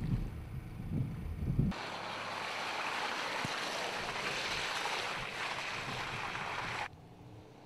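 Mercedes GLK 250 BlueTEC SUV on a muddy dirt track. It starts with a low rumble and wind buffeting, then after a cut about two seconds in there is a steady rushing hiss as the SUV passes through the mud. The hiss cuts off abruptly near the end.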